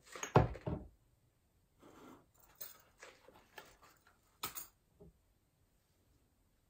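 Glass jars handled on a tabletop: one dull thud a third of a second in, then scattered light clicks and knocks for the next few seconds.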